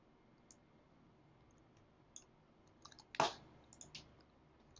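Sparse faint clicks of computer keys. One louder click comes a little past three seconds in, followed by a quick run of clicks.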